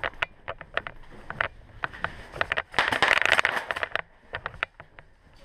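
Irregular clicks and knocks with scraping and rustling, densest about three seconds in and thinning out near the end: footsteps and gear noise of an airsoft player moving through tarp-walled corridors.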